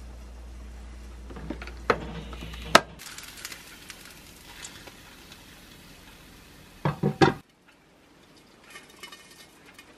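Tableware being handled: two sharp clinks of a rice paddle against a ceramic bowl and the rice cooker's inner pot as rice is served, over a low steady hum, then quieter utensil sounds of food being placed on a plate, and three quick knocks of dishes being set down about seven seconds in.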